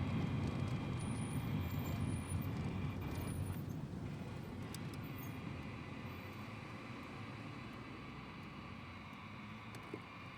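A low rumbling noise that slowly fades away.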